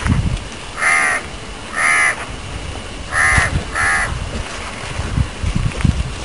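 A crow cawing four times, short calls about a second apart, over scattered low thumps.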